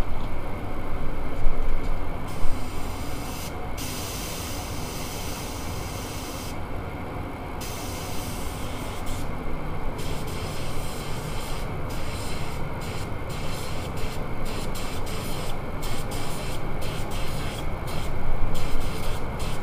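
Air spray gun hissing as its trigger is pulled: two longer passes of a few seconds each, then a run of short on-off bursts. A steady low rumble underlies it.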